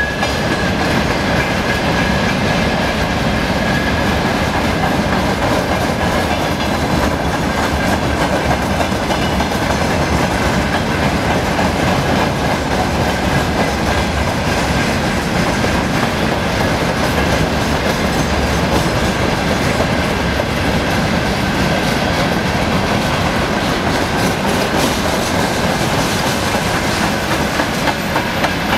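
Freight train wagons, mostly open gondolas, rolling past steadily, their wheels clattering on the rails. A faint, steady high whine runs over the rumble.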